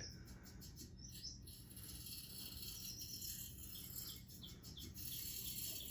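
Faint birdsong, short repeated chirps over a steady high hiss, from the nature soundtrack of a mouse video playing on a TV.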